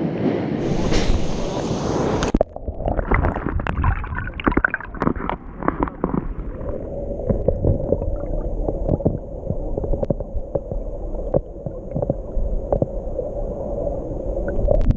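Stream water heard by a camera held underwater: muffled gurgling with many small knocks and bubble clicks over a low rumble, and a faint steady hum from about six seconds in. For the first two seconds, before the change to underwater sound, there is an even rushing noise above the surface.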